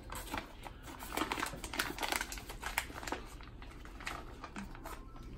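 Chick-fil-A paper sandwich bag crinkling as it is handled and folded up by hand, a quick run of crackles that thins out after about three seconds.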